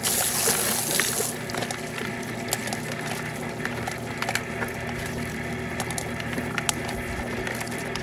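Water spray from a hose nozzle hissing into a homemade 5-gallon-bucket quail plucker, cutting off about a second in. Under it runs the steady hum of the old garage door opener motor spinning the plucker plate, with scattered light knocks as a scalded quail tumbles against the rubber plucker fingers.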